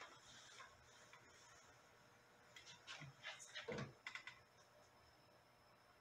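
Faint handling clicks and knocks from a smoke-detector tester on a pole being raised to a ceiling smoke detector: a short run of light clicks about halfway in, with one duller knock as the loudest.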